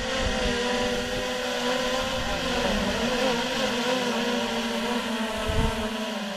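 Small camera drone's propellers whirring steadily, a droning whine with a few wavering tones over a hiss.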